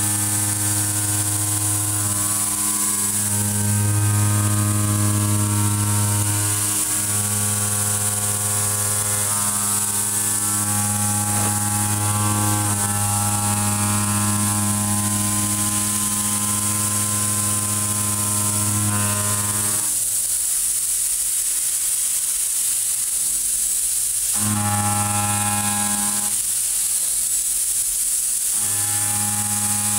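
CNC machining center milling 4140 steel with a Kennametal Mill 4-12 KT tangential shoulder mill at about 1241 rpm: a steady pitched drone of the cut. It breaks off twice near the end, as the cutter comes out of the cut for a moment, then picks up again.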